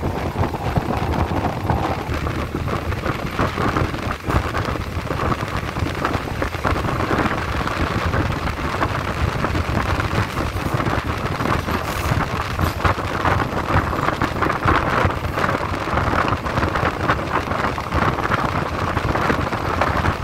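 Steady running noise of a moving passenger train heard through an open carriage window: wheels rumbling on the rails and air rushing past the microphone. A couple of sharper knocks come about four and twelve seconds in.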